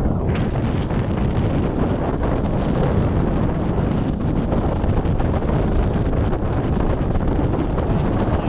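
Loud, steady wind buffeting the microphone, a low rumbling rush with no let-up.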